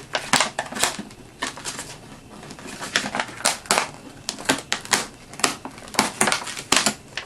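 Cardboard packaging of a Blu-ray gift set being handled and turned over, making irregular sharp taps and light crinkles.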